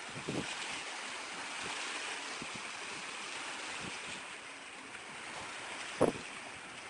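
Steady wash of small waves lapping in the shallows, with wind on the microphone. A short, loud thump about six seconds in.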